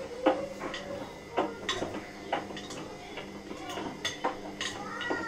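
Irregular clatter of small hard objects being handled: sharp clicks and knocks, roughly one every half second.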